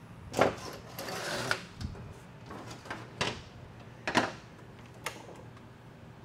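Metal parts and hand tools clanking and clattering on a steel workbench: several sharp knocks with a short rattle about a second in, over a steady low hum.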